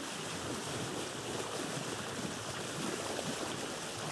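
A steady wash of sea water, an even rushing noise with small splashy flickers.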